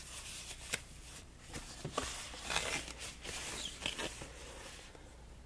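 Thin foam packing sheet and a plastic bag rustling and crinkling as they are pulled off a car stereo screen, with scattered light crackles and ticks.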